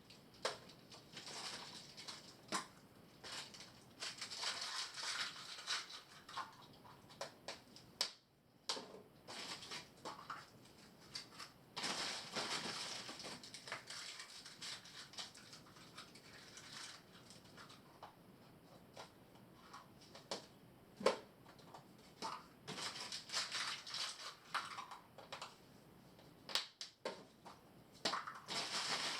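Irregular rustling and crunching, like something being handled or crumpled, with scattered sharp clicks.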